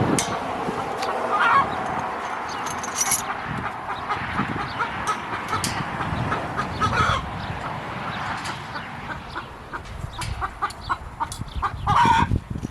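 Chickens clucking, with scattered sharp clicks and knocks among them.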